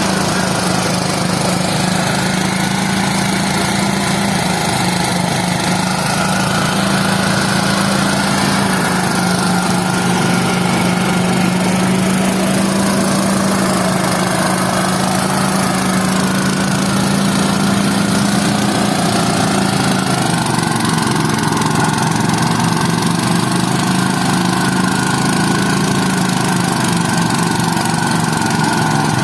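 A small engine running steadily under constant load, its pitch sagging slightly about twenty seconds in.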